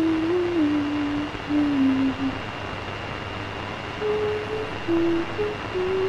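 A slow wordless melody of single held notes stepping up and down, which breaks off for a couple of seconds mid-way and then resumes, over a steady hiss with a thin high whine and a low hum beneath.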